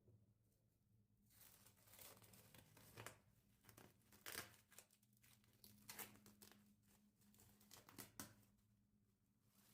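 Crinkly wrapping material being handled and torn: a run of short rustles and sharp crackles that starts about a second in and dies away near the end.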